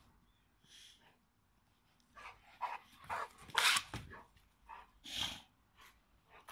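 A dog barking in play: a string of short barks starting about two seconds in, the loudest near the middle.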